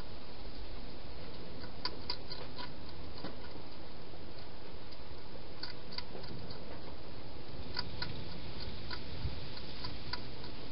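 Hedgehog crunching food in a feeding station: sharp, irregular clicks in small clusters every second or two, over a steady low rumble.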